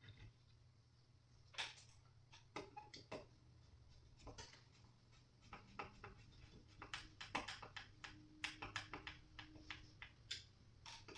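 Faint, irregular light clicks and taps of flat-pack nightstand parts and hardware being handled during assembly, sparse at first and coming more often from about halfway on.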